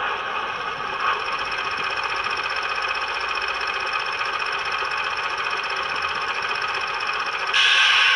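Sound decoder in a Hornby Class 31 OO gauge model playing the diesel locomotive's air compressor over the idling engine sound, heard through the model's small speaker. A short, loud hiss comes near the end.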